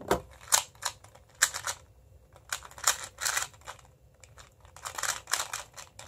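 Plastic clicking of a MoFang Jiaoshi MF2S 2x2 speed cube being turned fast during a solve, in quick bursts of turns with short pauses between them.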